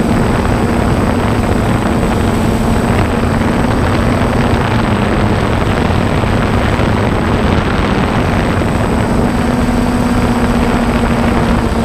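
Motors and propellers of an FPV drone in flight, heard loud and close through the drone's own camera: a steady, unbroken noise with a constant low hum.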